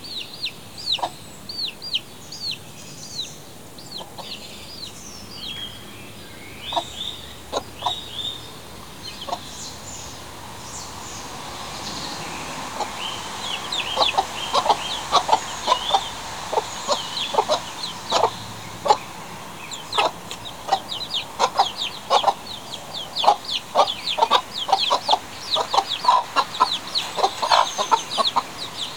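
Chicks peeping in quick runs of high, falling notes, with a hen clucking in short low notes that become busier and louder about halfway through.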